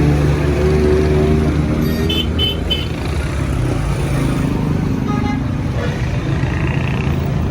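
Vehicle engine running steadily, with three short high-pitched beeps about two seconds in.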